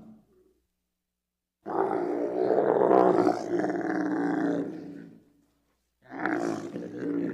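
Camel calling: one long, rough call of about three and a half seconds, then after a short pause a second call begins near the end.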